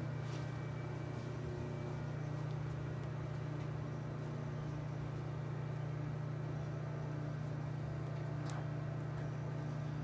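A steady low hum, unchanging throughout, like a motor or machine running.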